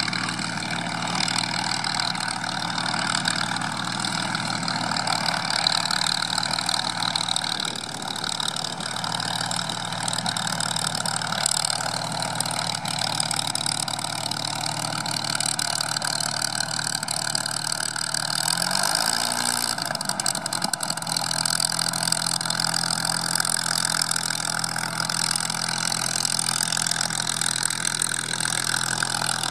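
Supermarine Spitfire PR.XI's Rolls-Royce Merlin V12 running at low taxiing power as the aircraft rolls past. The engine note briefly rises and falls about two-thirds of the way in.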